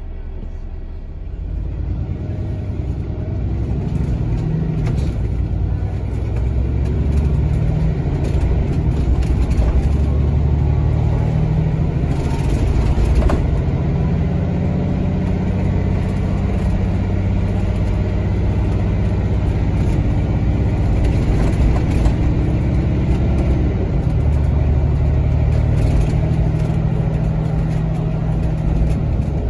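Scania K280CB Fencer bus's Scania DC07 diesel engine, a Cummins 6.7-litre six with a Scania turbocharger, pulling away hard at high revs through its ZF Ecolife automatic gearbox. It is heard from inside the passenger cabin. About a second and a half in, the engine revs rise, and the pitch then steps several times as the gearbox changes up.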